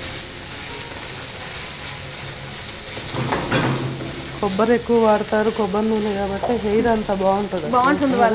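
Food sizzling as it fries in a frying pan while a spatula stirs it, with a brief louder rush of sizzle a little past three seconds in. From about halfway a person's voice comes in over the frying and is the loudest sound.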